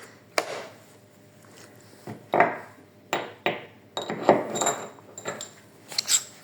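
Steel sockets and accessories from a 3/8-inch socket set clinking and knocking as they are handled and fitted together, several separate clicks, a few with a brief metallic ring.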